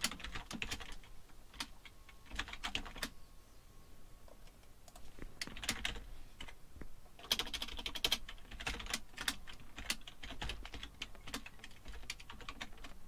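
Computer keyboard typing in bursts of quick keystrokes, with a short pause a few seconds in.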